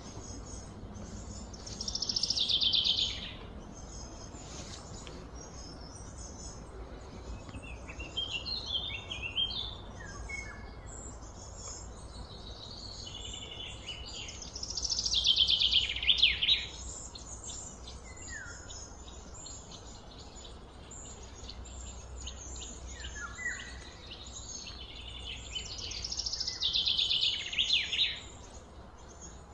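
A bird singing: a loud trill that falls in pitch, given three times about twelve seconds apart, with shorter chirps between, over a steady low hum.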